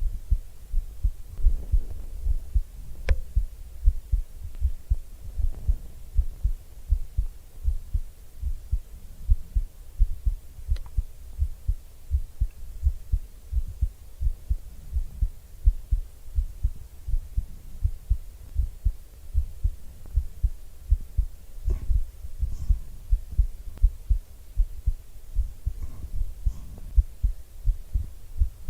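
A human heartbeat heard up close: a steady, even run of low, dull thumps, with a few faint clicks here and there.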